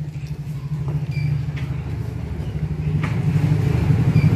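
A motor vehicle engine running steadily: a low pulsing rumble that grows a little louder toward the end.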